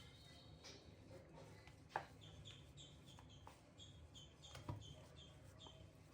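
Faint bird chirps, short and high, repeating about two or three times a second from about two seconds in, with two sharp clicks, about two and five seconds in, as the loudest moments.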